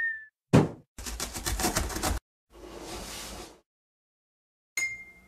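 Cartoon sound effects: a single thump of a box landing about half a second in, then a fast rattle for about a second, a hissing whoosh, and a bright ding near the end that rings and fades.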